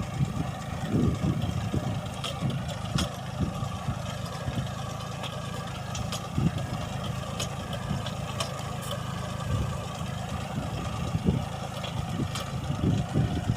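An engine running steadily with a low, even hum, with scattered light clicks and knocks over it.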